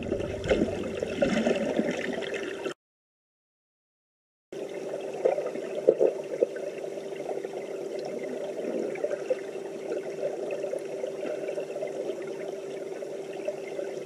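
Underwater sound in a swimming pool heard through a submerged camera: a steady watery hiss with a constant low hum and scattered small clicks and crackles. It cuts to silence for about two seconds, a little under three seconds in, then resumes.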